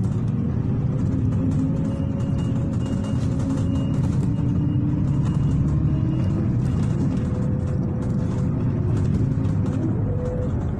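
Inside a moving city bus: a steady low rumble of engine and road, with a whine that drifts up and down in pitch. About two seconds in, a run of short high beeps sounds for several seconds.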